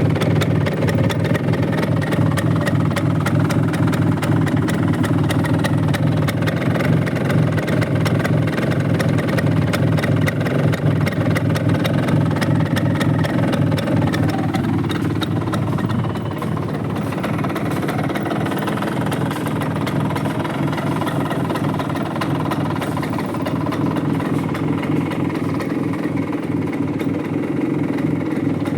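Bajaj Chetak scooter's single-cylinder two-stroke engine running steadily with an even rapid pulse, settling to a slightly quieter, lower note about halfway through.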